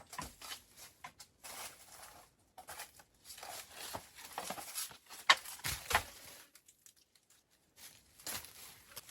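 Irregular rustling and tearing, like something being handled, crumpled or torn, with two sharp cracks a little past the middle.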